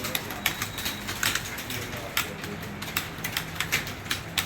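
Typing on a computer keyboard: quick, irregular key clicks, several a second.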